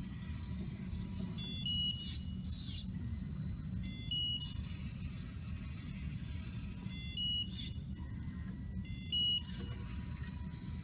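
Short electronic beep sequences from the mBot robot's buzzer, four times, each followed by a brief noisy burst, over a low steady hum.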